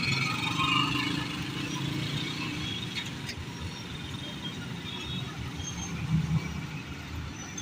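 Road roller's engine running with a steady low rumble.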